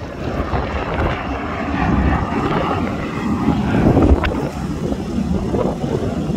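Boeing B-17G Flying Fortress's radial engines running at low power as the bomber taxis, a steady propeller drone.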